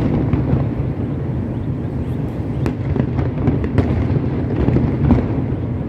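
Fireworks display going off at a distance: a continuous low rumble of overlapping bursts, with sharp cracks standing out now and then.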